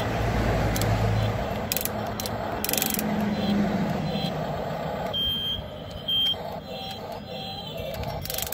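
Small electric motors and gears of a 1:16-scale RC excavator whirring as the boom lifts and the cab swings, louder in the first half with a few clicks. Two short high beeps a little after five and six seconds in.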